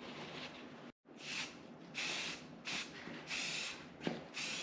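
Aerosol spray can of primer hissing in several short bursts as bare metal is spot-primed, starting about a second in.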